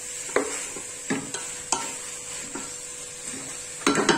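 A spatula scraping and knocking against a metal pot as okra is stirred into a thick spiced tomato masala, with a few separate strokes and then a quick cluster of knocks near the end. A steady sizzle of the frying runs underneath.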